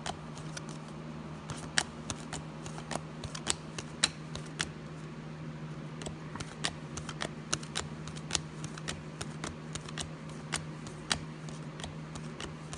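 Football trading cards being flipped through one by one in a hand-held stack, each card slid off with a sharp click, irregularly a few times a second. A steady low hum runs underneath.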